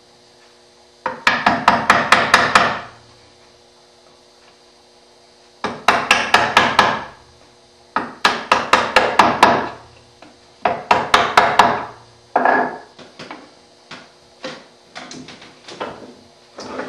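Light, rapid taps of a wooden mallet on a chisel, about five a second in bursts of one to two seconds, as the chisel is chopped straight down at the scribed baseline of dovetail tails. The taps thin out to short, sparse groups in the last few seconds.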